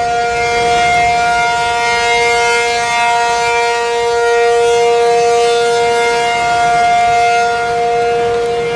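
ACA Penetrator 50 (P-50) outdoor warning siren sounding the steady Alert signal for a tornado warning. It holds one unbroken two-note chord with no rise or fall in pitch, swelling and fading slightly in loudness.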